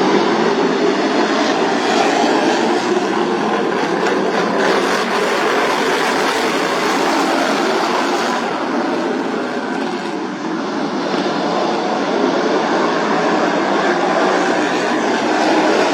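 Small engines of several modified racing lawn mowers running hard together, a loud steady noise that eases slightly about ten seconds in and builds again.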